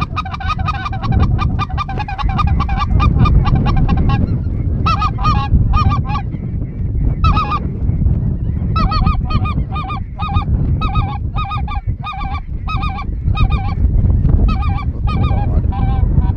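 Geese honking: a fast run of short honks for the first few seconds, then bursts of honks separated by brief pauses, over a steady low rumble.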